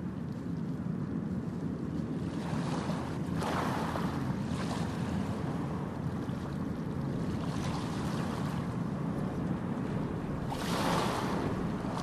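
Ocean waves washing onto a beach: a steady rushing surf that swells as waves break, about three seconds in, more faintly in the middle, and most strongly near the end.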